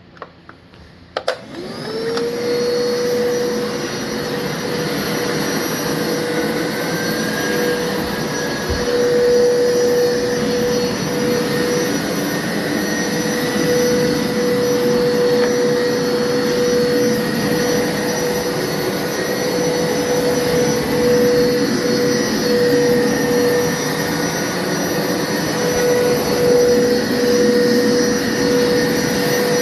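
Hoover upright carpet washer switched on with a click about a second in. Its motor spins up with a rising whine, then runs steadily with suction noise as it works across the carpet.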